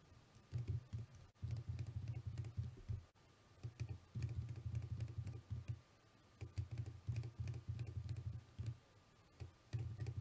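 Computer keyboard typing in about five bursts of rapid keystrokes, with short pauses between them.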